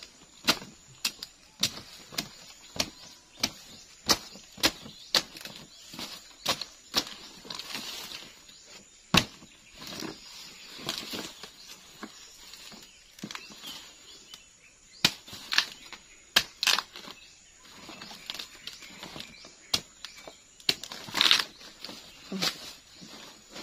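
Machete chopping into the base of a giant swamp taro plant: sharp, irregular chops, about one or two a second, as the corm is cut free.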